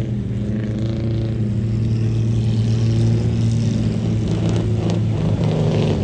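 A classic car's engine running at a fairly steady pitch, rising and falling slightly.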